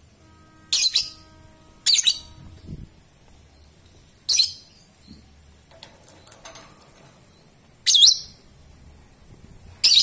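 Lovebird giving short, shrill, high-pitched calls, five sharp ones spaced one to three and a half seconds apart.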